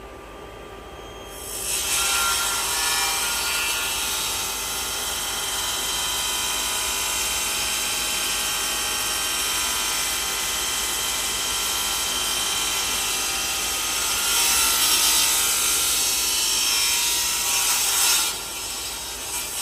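Band saw cutting through a block of wood: a steady rasping cut that begins about a second and a half in and stops shortly before the end, followed by a couple of brief touches of the blade.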